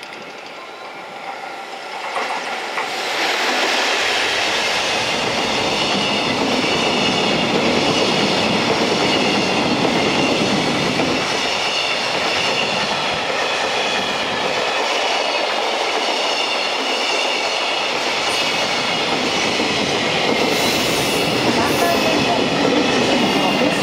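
Freight train hauled by an EF210 electric locomotive running through close by. The sound builds over the first three or four seconds into a steady rush of wheels on rail as a long line of container flatcars, many of them empty, rolls past.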